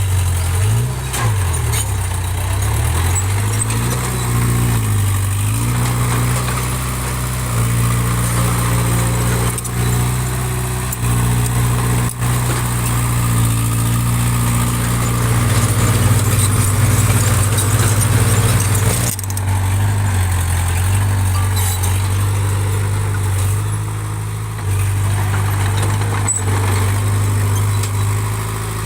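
Diesel engine of a small bulldozer running under changing load, its pitch shifting up and down several times, with a few sharp knocks.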